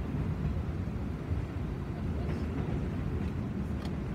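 Freight train of covered grain hopper cars rolling past: a steady low rumble of steel wheels on the rails, with a few faint clicks.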